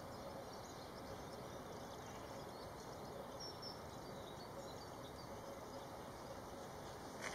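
Steady low outdoor background noise with a few faint, short high-pitched chirps from small birds, the clearest about three and a half seconds in, and a light tap near the end.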